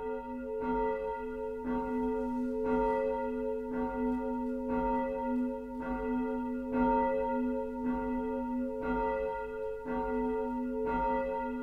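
A church bell tolling steadily, about one stroke a second, each stroke ringing on into the next.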